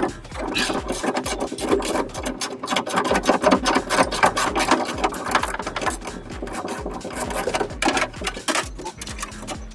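Ratchet wrench with a 10 mm socket clicking rapidly as a bolt is turned out, a fast run of ratchet clicks that thins out near the end.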